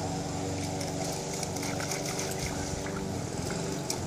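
An engine or motor running steadily at an even pitch, with a few faint clicks.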